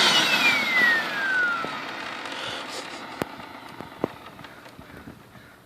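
Hoover WindTunnel upright vacuum cleaner's motor winding down after being switched off, its whine falling steadily in pitch as the running noise fades, followed by a few sharp clicks. The motor is burned out, per the owner.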